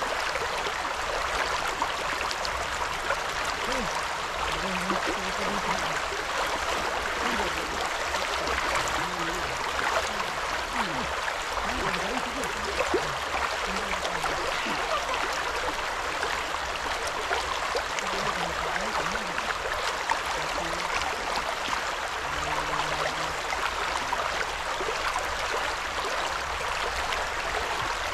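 Steady, even rushing of water.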